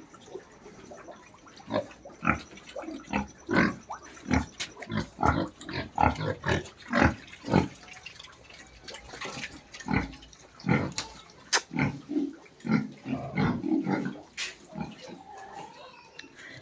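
Farm pigs grunting: a run of short, irregular grunts, about one or two a second.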